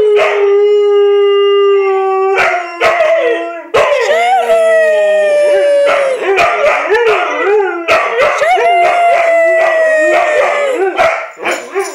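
Two Siberian huskies, an adult and its young son, howling together: a long steady howl to begin, then overlapping howls that bend up and down in pitch, with another long held note near the end.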